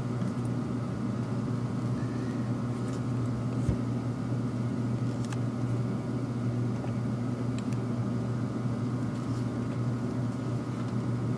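A steady low hum, like a running fan or appliance, with a few faint clicks and one soft knock a little under four seconds in.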